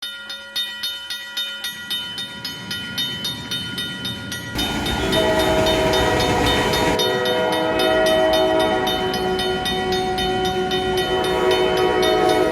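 Railroad crossing alarm bell ringing in quick, even strokes. About four and a half seconds in, a passing train's rumble joins with a long multi-tone horn, and the bell keeps ringing underneath. Everything cuts off abruptly at the end.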